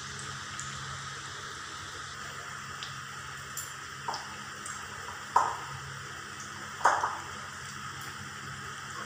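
Fish-roe pakoras frying in hot mustard oil in a kadai, a steady sizzling hiss. A few sharp clicks and knocks break through it, the two loudest about five and a half and seven seconds in.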